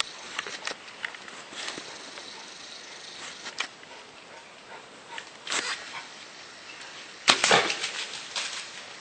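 Wild hog moving through dry forest leaf litter: scattered short crackles and rustles, with louder bursts of rustling about five and a half and seven and a half seconds in.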